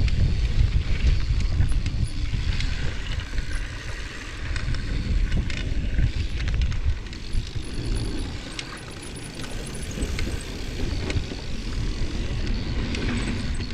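Mountain bike ridden fast downhill, heard from a helmet-mounted action camera: wind buffeting the microphone, tyres rolling over dirt and many short clicks and rattles from the bike. The wind rumble eases about halfway through.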